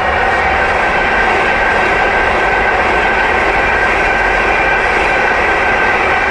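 Frecciarossa high-speed electric train passing close by at speed: a loud, steady rush of wheel and air noise with a faint high steady tone running through it.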